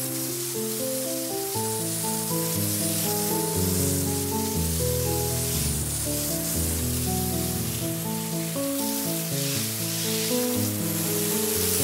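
Background music of slow, held notes over a steady hiss of water spray from field irrigation sprinklers.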